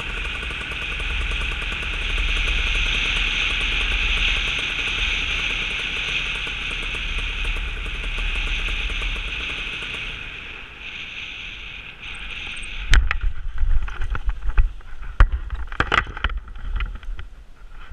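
Paramotor gliding in to land: a steady rush of wind and engine noise that drops away about ten seconds in. From about thirteen seconds come irregular knocks and thumps as the pilot touches down and runs out on the grass.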